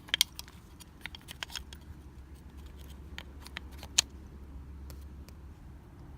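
A string of sharp clicks and light plastic rattles as a clip is worked off a car's ignition switch housing by hand. The loudest snap comes about four seconds in.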